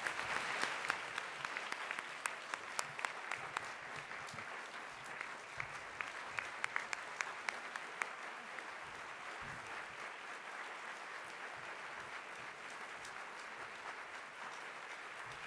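Audience applauding. Sharp individual claps stand out during the first half, then the applause goes on more evenly and a little quieter.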